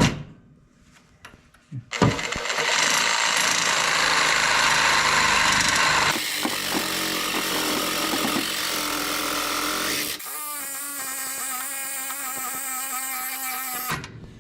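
A reciprocating saw (Sawzall) cutting through a Jeep TJ's steel factory frame rail. It starts about two seconds in and runs hard for about twelve seconds. Its tone changes twice, and in the last few seconds a wavering metallic whine joins it. It cuts off just before the end.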